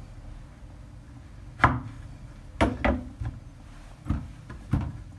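Kitchen knife cutting strawberries on a cutting board: about six separate knocks of the blade against the board, irregularly spaced, starting a little over a second in.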